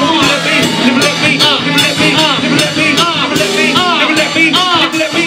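Hip-hop backing music playing loudly, with a steady drum beat and a short rising-and-falling pitched figure repeated over and over.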